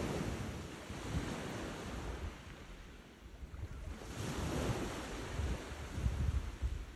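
Surf washing on the beach, with wind buffeting the microphone in low rumbling gusts. The sound swells at the start and again from about four seconds in.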